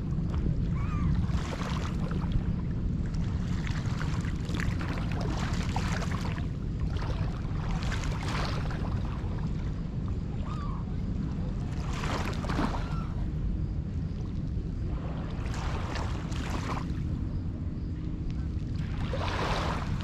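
Small lake waves washing onto a rocky shore, one swell of wash every three to four seconds, over a steady low rumble.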